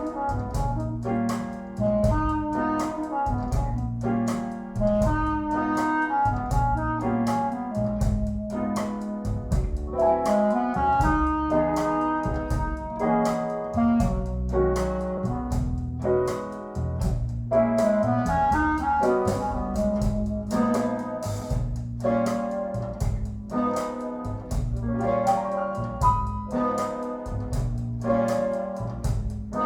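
Jazz music with horns, piano and bass over a steady beat, played back through a Tsakiridis Aeolos tube amplifier and Qualio IQ loudspeakers.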